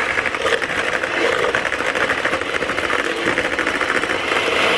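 Electric hand mixer running steadily at speed, its beaters whisking egg whites and sugar in a bowl toward stiff peaks.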